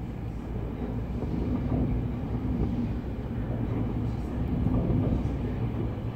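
Hurricane-force wind and driving rain roaring steadily, swelling in gusts about two seconds in and again near five seconds.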